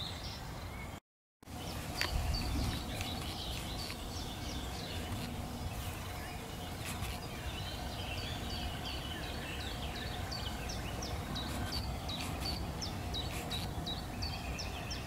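Outdoor lakeside ambience: small birds chirping in quick short notes over a steady background hiss. The sound drops out completely for a moment about a second in.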